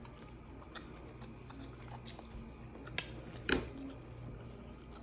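A person chewing food close to the microphone, with small wet clicks throughout. A sharp click comes just before three seconds and a louder one about half a second later.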